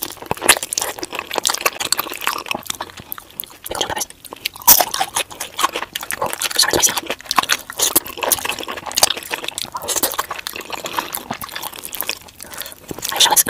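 Close-miked wet chewing and lip-smacking of someone eating cheese-covered loaded fries, with rapid sticky clicks and smacks, played at double speed.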